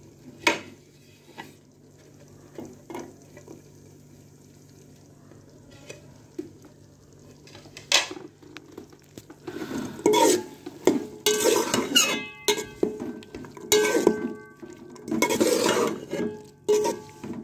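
Slotted steel spoon stirring vegetables in an aluminium pot, scraping and clanking against the pot, with the pot ringing on the strokes. There are a few light taps at first, and from about halfway on the stirring turns steady and loud, in quick repeated strokes.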